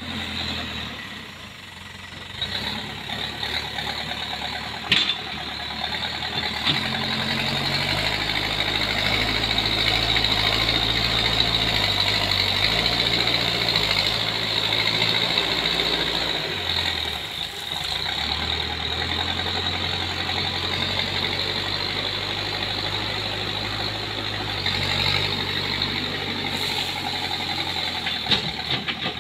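Backhoe loader's diesel engine running under changing load, its pitch stepping up and down as the machine pushes soil with its front bucket and reverses. There is a single sharp click about five seconds in.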